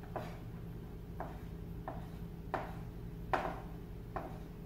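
Kitchen knife slicing roasted poblano peppers into strips on a plastic cutting board: six separate knife taps against the board, unevenly spaced, over a steady low hum.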